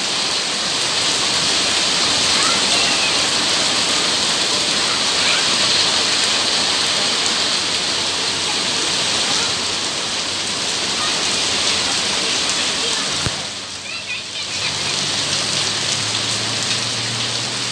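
Steady rain falling onto a waterlogged paved courtyard, with drops splashing into standing puddles. The rain briefly drops in level a little after two-thirds of the way through, and a low hum joins it after that.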